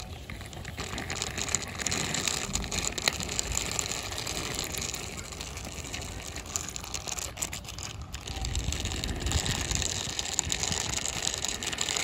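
Small plastic wheels of a toy autorickshaw rolling and scraping over rough concrete as it is pushed by hand, a steady gritty rattling noise.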